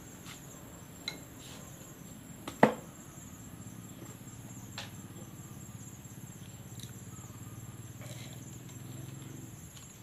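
Light clicks and knocks of a screwdriver and small parts being handled on a wooden workbench, with one sharp knock about two and a half seconds in. Under them runs a steady high insect drone and a low hum.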